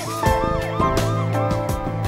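Background music with a steady beat and percussive hits. Over it runs a fast, wavering siren-like wail that rises and falls about three times a second.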